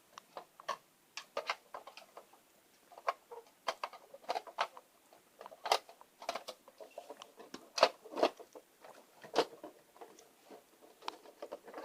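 Irregular clicks and taps of the plastic parts of an LGB G scale passenger car being handled and fitted back together by hand, with the loose doors being set back into the body.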